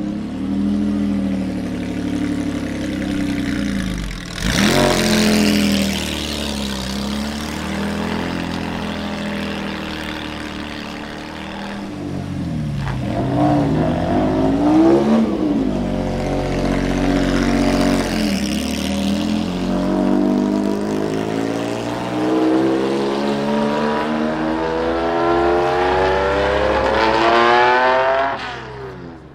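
Lancia Stratos rally car's V6 engine idling with a sharp blip of the throttle about four seconds in, then several revs up and down. Near the end it pulls away, the revs climbing steadily as it accelerates before dropping off.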